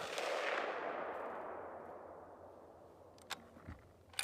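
The echo of a Ruger M77 bolt-action rifle shot fading over about two and a half seconds, the shot itself falling just before. Near the end the bolt is worked: a few sharp metallic clicks and a knock, the loudest at the very end.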